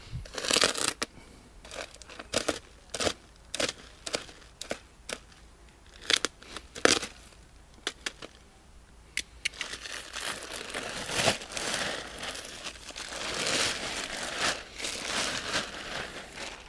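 Plastic bag of black wood-chip mulch crinkling and crackling as it is handled and opened, with many sharp clicks and rustles. From about ten seconds in comes a steadier rustling hiss as the wood chips pour out of the bag onto the ground.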